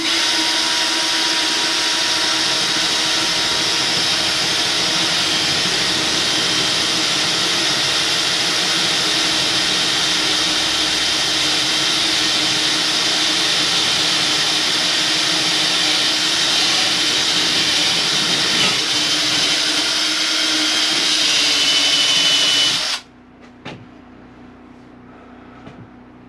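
Cordless drill running steadily under load as it bores a centre hole through a wall, stopping suddenly near the end.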